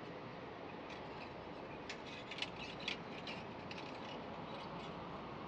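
Glass seed beads on thin wire strands clicking lightly against each other as the strands are gathered in the fingers: a quick cluster of small clicks in the middle, over a faint steady hiss.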